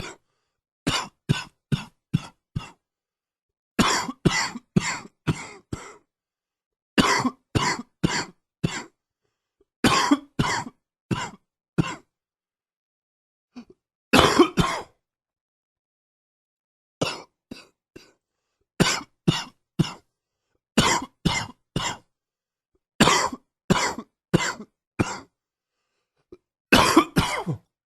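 A man coughing from a chest cold, in about ten fits of three to six coughs each, with short silent pauses between the fits.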